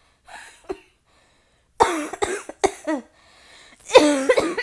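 A woman in a violent coughing fit, portrayed as asthma set off by cigarette smoke: a quick run of hoarse, voiced coughs about two seconds in, then the loudest cough near the end.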